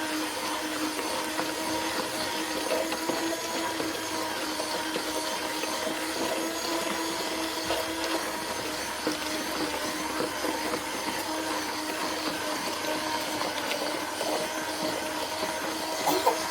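Handheld electric mixer running steadily with an even whine, its beaters whipping eggs, sugar and oil in a bowl until the mixture turns pale. A brief knock comes near the end.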